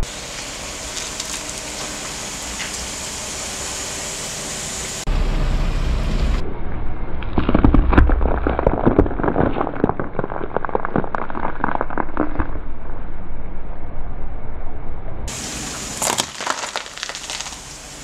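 Car tyre slowly rolling over a head of broccoli, crushing it. A low rumble starts about five seconds in, and a dense run of crunching and snapping crackles follows for about five seconds as the stalk and florets break. A few scattered crackles come near the end.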